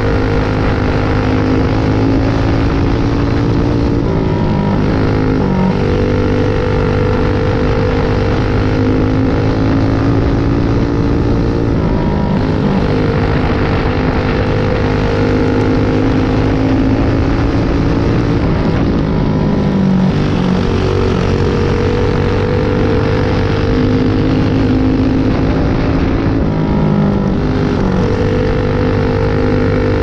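Single-cylinder four-stroke clone engine of a dirt-track racing kart running hard, heard from the driver's seat. The engine pitch drops and climbs back about every seven or eight seconds as the kart slows for the turns and pulls down the straights.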